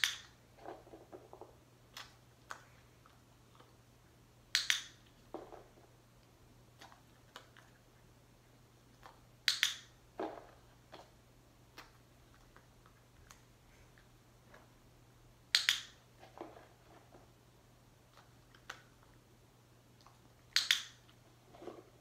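Dog-training clicker clicking five times, about every five seconds, each a sharp double click that marks the puppy's nose touching the hand target. Each click is followed by softer, duller sounds of the reward being handed over and eaten.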